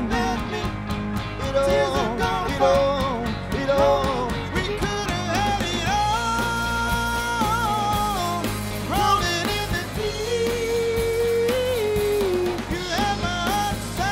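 Live band playing a song, with male lead vocals over keyboard and drums; the singer holds long notes in the middle.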